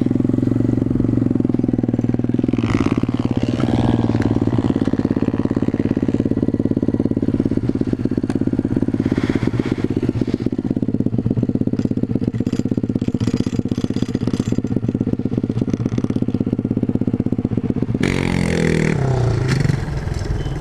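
Pit bike's small single-cylinder four-stroke engine running steadily, its pitch falling near the end as it comes off the throttle.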